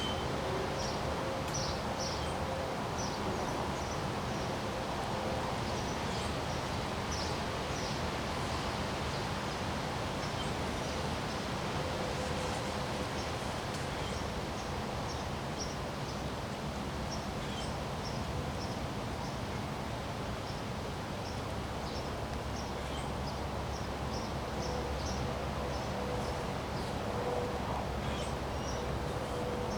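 Steady wind noise with leaves rustling, and short high-pitched chirps repeating throughout.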